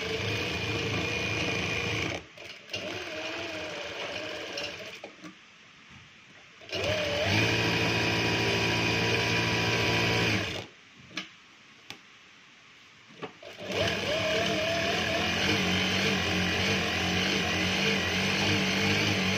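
Juki DDL-8700 single-needle industrial lockstitch sewing machine, driven by a servo motor, stitching fabric in four runs with short stops between. The pauses come about 2, 5 and 11 seconds in.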